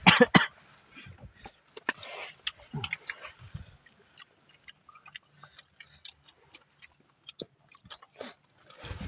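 Close-up eating sounds of someone chewing chicken: a couple of loud wet smacks at the start, then scattered small mouth clicks and smacks.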